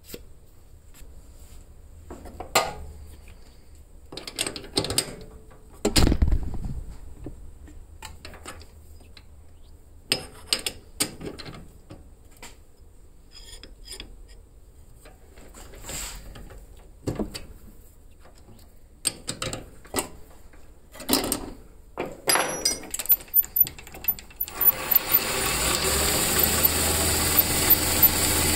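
Scattered metal clicks and knocks as the cue shaft is handled and set in the steel jaws of a lathe chuck. About 25 seconds in, the benchtop metal lathe starts and runs steadily, spinning the shaft with its new G-10 ferrule.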